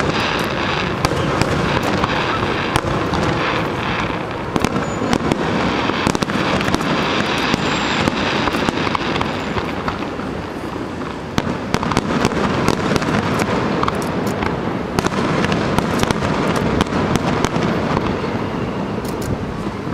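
Fireworks finale barrage: a dense, continuous crackle of many shells bursting, with louder sharp bangs standing out throughout.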